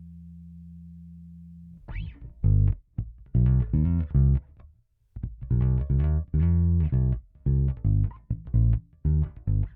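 Electric bass played through a Hiwatt Bulldog 440 bass amplifier. A steady held low tone fades slightly for about two seconds, then a riff of separate plucked notes follows with short gaps between them.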